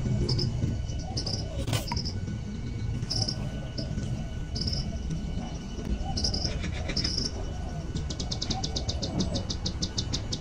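Insects chirping in short high bursts, then a fast, even trill of about eight pulses a second near the end, over a low steady rumble. There is one sharp click about two seconds in.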